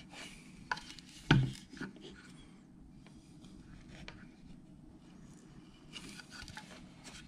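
Hand carving tool shaving and scraping wood, with scattered small clicks and one louder knock about a second and a half in.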